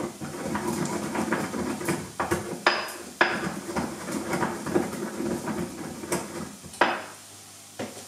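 Pestle grinding juniper berries and peppercorns in a mortar: a continuous gritty grinding, broken by a few sharp knocks of the pestle two to three seconds in and two more near the end.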